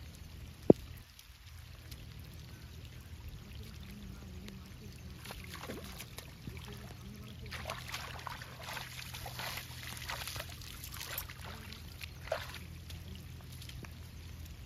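Hands splashing and sloshing in shallow river water at the bank, a run of irregular splashes from about five seconds in until near the end. A single sharp click about a second in is the loudest sound.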